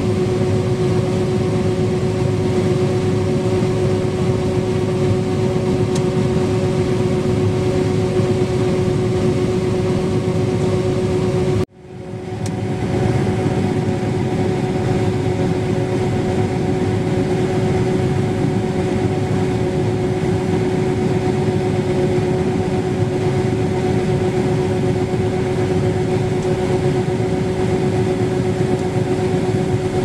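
Combine harvester running steadily while unloading corn through its auger, a continuous mechanical drone with a constant whine. The sound cuts out abruptly for a moment about twelve seconds in, then returns unchanged.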